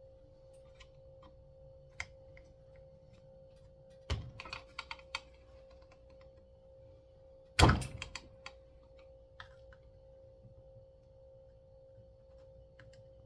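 Tools and small metal parts clicking and clacking as a chainsaw's recoil pull-starter is pried apart, with a quick run of clicks and, a little past halfway, one loud sharp clack. A faint steady hum runs underneath.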